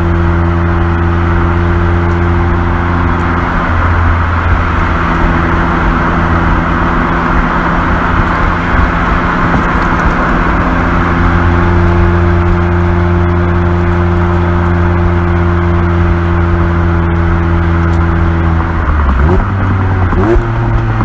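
Mazda Roadster's four-cylinder engine and exhaust pulling at a steady mid-range speed of about 3000 rpm, over road and wind noise. Near the end the engine note briefly sweeps and settles a little higher.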